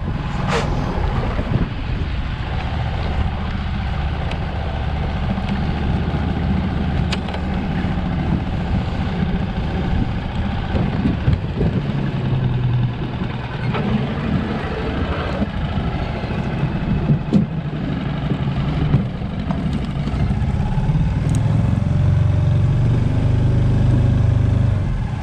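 Small boat's outboard motor running steadily as the boat moves along, with a few short clicks.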